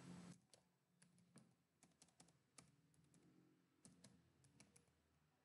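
Faint computer-keyboard keystrokes: a scattered, irregular run of single key clicks as a word is typed letter by letter.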